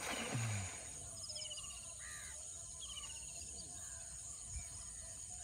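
Wild birds calling over a wetland: repeated quick high chattering notes and a few short calls. Right at the start comes a brief hiss of a thrown cast net landing on the water.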